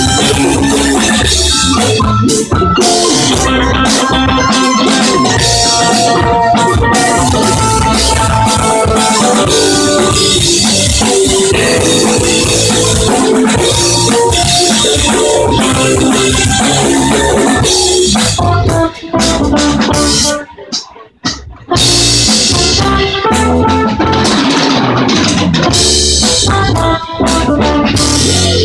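Live band playing loud: drum kit, electric bass, electric guitar, violin and keyboard, recorded with harsh, overloaded audio. About two-thirds of the way through the music stops for about a second, then comes back in.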